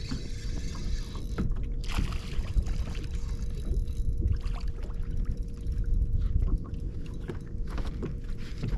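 Sounds aboard a bass-fishing boat on the water: a low, steady rumble with a faint constant hum and scattered small knocks and clicks.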